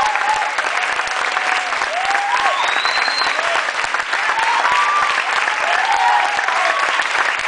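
Theatre audience applauding at a curtain call, with voices calling out in short whoops over the clapping.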